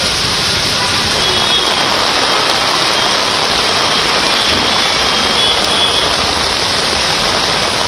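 Heavy rain pouring onto a road, a steady loud hiss.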